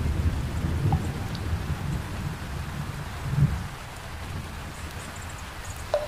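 Heavy rain pouring steadily, with a low roll of thunder that swells once more a little past the middle and then dies away, leaving the hiss of the rain.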